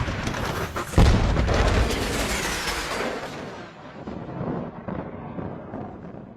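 A sudden loud boom about a second in, dying away slowly over the following seconds, the sound-effect kind used in cartoons.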